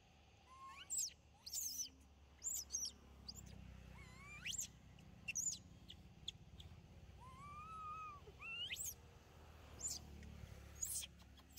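Young long-tailed macaques squeaking: about a dozen short, high-pitched calls that sweep quickly upward, spread out, with one longer arched coo about eight seconds in.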